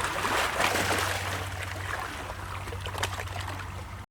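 Sea waves washing and splashing against rocks, an uneven rushing wash with the biggest surge in the first second, cutting off abruptly near the end.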